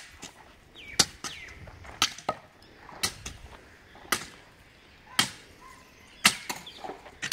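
Sharp, evenly paced strikes of a hand tool on a hard surface, about one a second, in a steady working rhythm.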